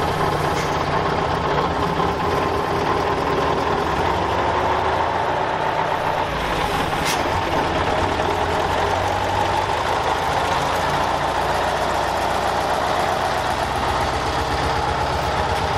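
Scania 141's V8 diesel engine idling steadily, heard close to its exhaust pipe, with a brief click about seven seconds in.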